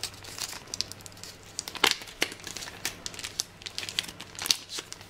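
Thin clear plastic sleeve crinkling and crackling as hands work it open, in irregular sharp crackles with a few louder snaps about two seconds in and near the end.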